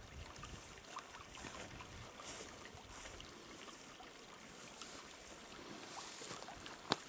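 Faint rustling and small crackles of footsteps moving through brush and dry leaves, with one sharp snap near the end.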